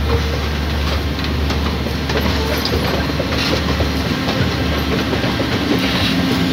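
Passenger train carriages, among them ex-JR West air-conditioned sleeper cars, rolling past with a steady rumble and wheels clicking over the rail joints.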